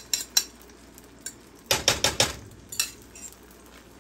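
Metal cutlery clinking against dishes in a kitchen: two sharp clinks in the first half second, a quick run of four or five about halfway through, and one more a second later.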